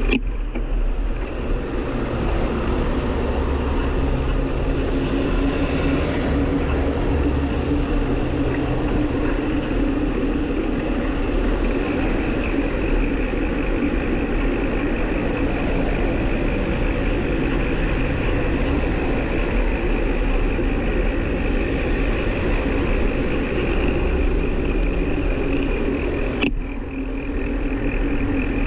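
Steady rumble of wind and rolling-tyre noise on a camera riding along on a moving bicycle, with a steady hum running through it. About 26 seconds in it dips briefly, with a sharp click.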